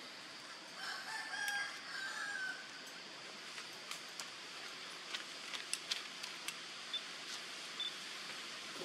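A rooster crowing once, starting about a second in and lasting about two seconds, followed by a scatter of sharp clicks in the second half.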